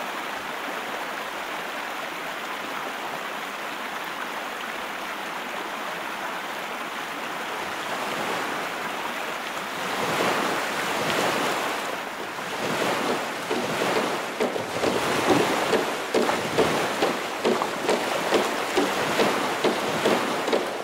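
Steady rushing water. About halfway through it swells, and a rhythmic splashing of roughly two strokes a second sets in.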